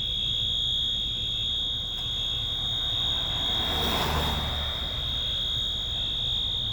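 School fire alarm sounding one continuous, unbroken high-pitched tone over a low rumble. A short swell of rushing noise rises and fades about four seconds in.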